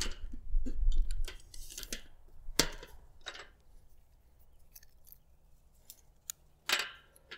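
Plastic MC4 solar connector parts clicking and rattling as they are handled and checked by hand. A run of short sharp clicks, a low rumble in the first two seconds, and a louder rustle near the end.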